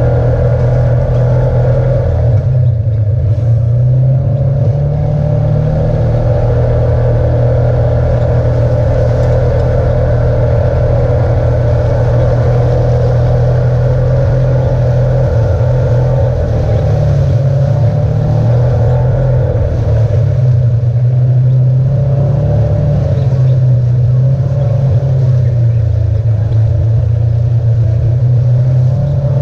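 On-board sound of a side-by-side UTV driving along a dirt trail: its engine drones evenly, with small rises and falls in engine speed now and then.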